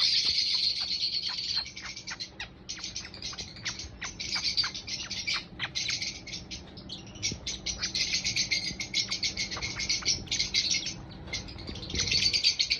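Baby lovebird chirping in fast, dense runs of high chirps, loudest at the start and again near the end, with short lulls in between.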